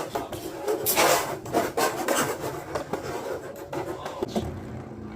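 Two Metal Fight Beyblade tops, Earth Eagle and an L-Drago Destructor, spinning and grinding against each other with a continuous rasping scrape and repeated sharp clicks as they collide.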